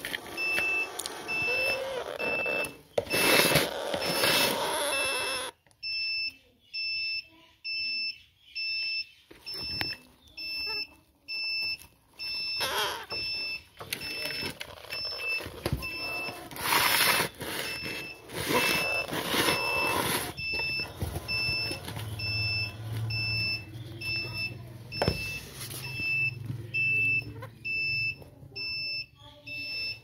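A high electronic beep repeating steadily, about three short beeps every two seconds, all at the same pitch. Several louder, harsh, noisy bursts break in now and then.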